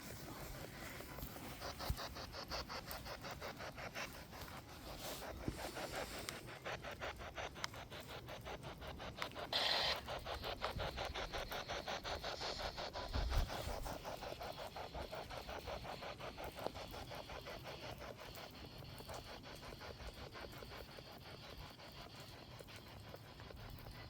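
Spirit box radio rapidly sweeping the AM band, a fast even chopping of static and radio fragments.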